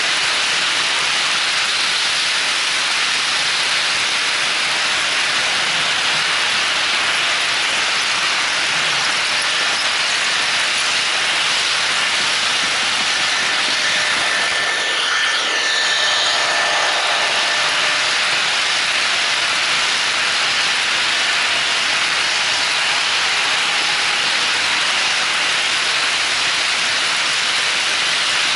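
HO-scale model trains running on the layout's track, a steady even rushing noise of metal wheels rolling on the rails. About halfway through, a faint steady whine rises over it for several seconds.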